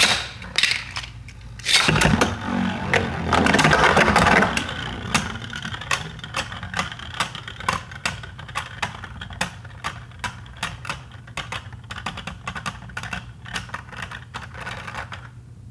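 Beyblade Burst tops launched into a plastic stadium about two seconds in, then spinning and clashing: a fast, irregular run of sharp plastic clicks as they hit each other and the stadium walls, over a steady spinning hum. One of them is a 3D-printed Erase Diaboros.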